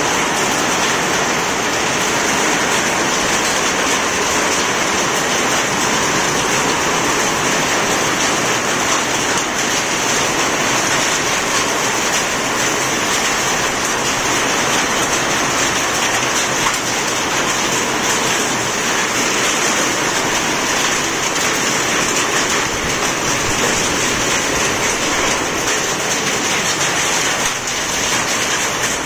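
Hailstorm: hail mixed with rain falling heavily and pelting the ground and surfaces outside, a dense, steady clatter that never lets up.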